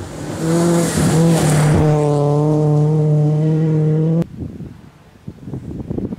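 BMW E36 rally car's engine running at high revs at full throttle as the car races past on a gravel stage. The pitch dips briefly twice, then holds steady and high. About four seconds in the sound cuts off abruptly, and fainter, uneven engine noise from the car further off follows.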